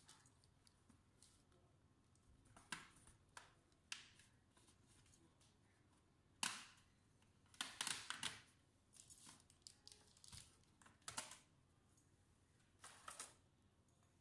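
Plastic snap-clips of a Dell Inspiron 3501's bottom cover clicking loose as the base panel is pried and lifted off, with a scatter of sharp clicks and snaps. The loudest snap comes about six and a half seconds in, followed by a quick cluster of them.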